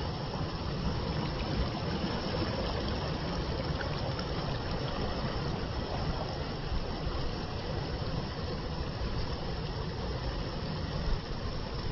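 Water flowing with a steady, even rush, strongest in the low end.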